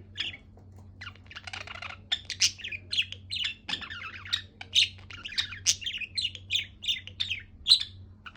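A pet budgerigar chirping and chattering happily: a rapid run of short, high chirps and squawks, with a brief lull about a second in. A faint steady low hum sits underneath.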